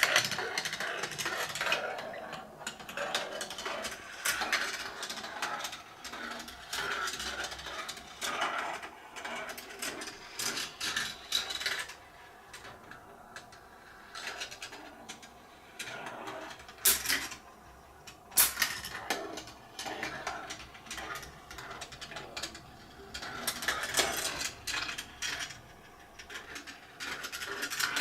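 Steel marbles rolling and clattering through a GraviTrax plastic marble run: a continuous rattling roll, dotted with clicks and clacks as they drop through the track pieces. Two sharp loud clicks come a little past halfway.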